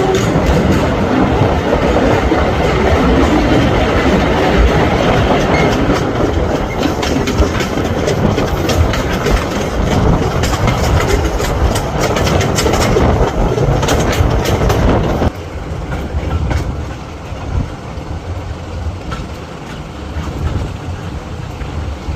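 Diesel-hauled passenger train heard from an open carriage window: the coaches rumble and the wheels clatter over the rail joints. The level drops suddenly about fifteen seconds in.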